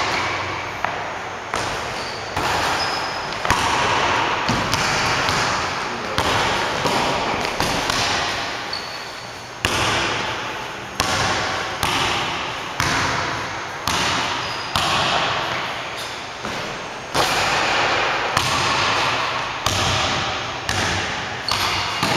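Basketball dribbled on a hardwood gym floor, bouncing steadily about once a second, each bounce ringing on in the echo of the large gym.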